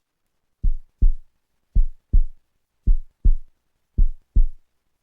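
Heartbeat sound effect: deep paired thumps in a lub-dub rhythm, four pairs about a second apart, starting a little under a second in.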